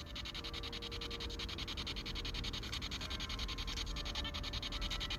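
ITC research device (a ghost-hunting noise box) playing a steady, fast-pulsing hiss through its small speaker, with faint steady tones in it. This is the noise that spirits are supposed to shape into words.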